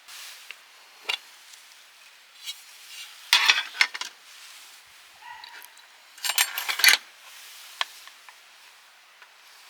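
Camp cookware and utensils clinking and scraping in two short bursts, with a few single clicks in between.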